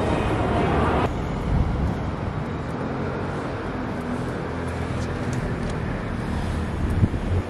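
Steady low rumble of road traffic, following a louder, hissier first second; a short knock sounds near the end.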